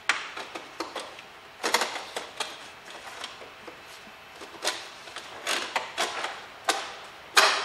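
Irregular plastic clicks and knocks from the windscreen washer filler neck being worked back into place in the engine bay, the loudest knock near the end.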